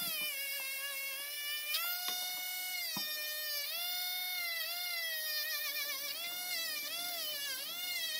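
Cordless rotary tool spinning a felt buffing wheel against an ebonite pipe mouthpiece to buff on carnauba wax. It makes a high motor whine whose pitch repeatedly dips and recovers as the wheel is pressed onto the mouthpiece.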